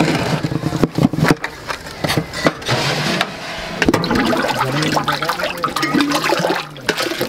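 Wooden planks knocking together as they are laid in a large metal pot. After a few seconds comes a sloshing of liquid as a steel mug is dipped into a big pot of brown liquid.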